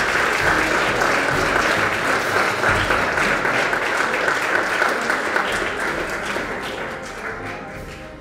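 Audience applauding at the end of a lecture, a steady patter of many hands that fades out near the end.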